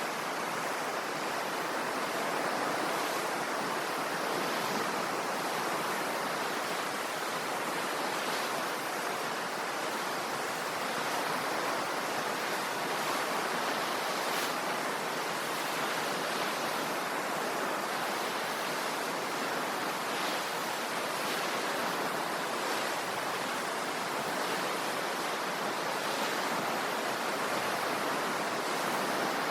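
Sea waves washing on the shore: a steady hiss of surf that swells gently now and then.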